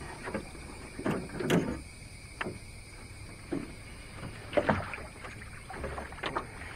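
Irregular knocks and thumps of footsteps and shifting gear in a jon boat as a person stands up and moves about in it, the loudest about a second and a half in and again past the middle.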